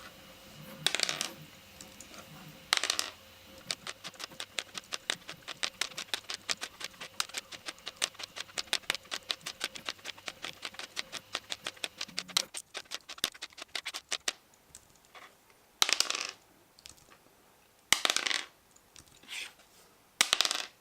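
A 3D-printed plastic five-sided die, a triangular prism, rolled again and again onto a cutting mat, clattering as it lands and tumbles. A quick run of many small clicks fills the middle, then a few separate clattering throws come near the end.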